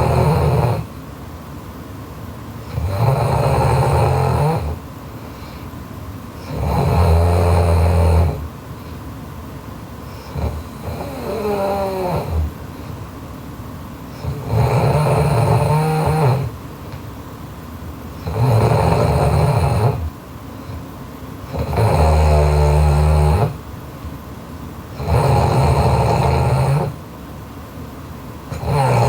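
A young woman snoring loudly in her sleep, one snore every three and a half to four seconds, each lasting about one and a half to two seconds. Midway comes a softer snore that wavers in pitch.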